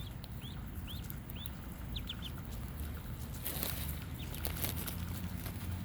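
Ducklings peeping: a run of short, high peeps, about two or three a second, that stops a little over two seconds in, followed by scattered clicks and a brief rush of noise over a steady low rumble.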